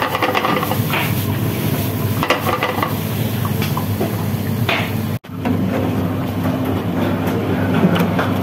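Diced food frying in a metal pan, sizzling while it is stirred and scraped with a few short clicks, over a steady low hum of the kitchen's extraction. After a cut about five seconds in, the hum carries on with a few light knocks.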